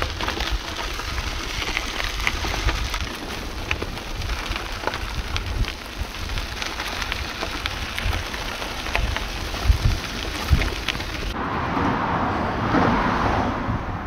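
Wind buffeting the microphone and road noise from a moving bicycle, with scattered small clicks and rattles; about eleven seconds in it switches abruptly to a duller, steadier rush.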